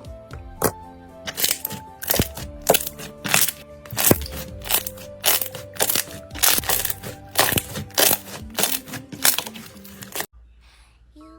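Slime being handled, giving sharp crackling pops about two a second, over background music that cuts off near the end.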